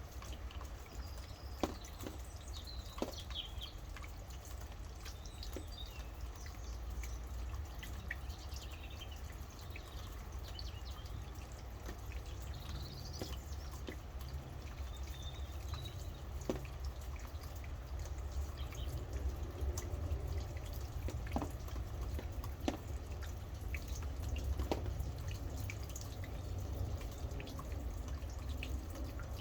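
Steady rain with scattered loud drips and a constant low rumble underneath, while birds chirp in short high calls, mostly in the first half.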